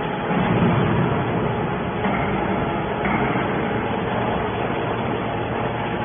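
Hydraulic scrap-metal baler running, a steady mechanical drone with a faint even hum.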